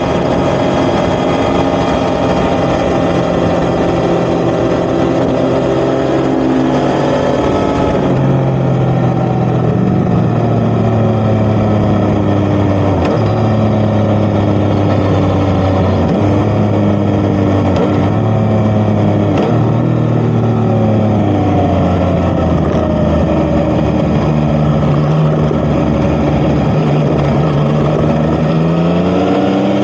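Yamaha XSR900's inline-three engine through an Akrapovic titanium exhaust, running under way on the road. The revs climb, then drop with an upshift about eight seconds in, hold fairly steady with brief dips, and climb again near the end.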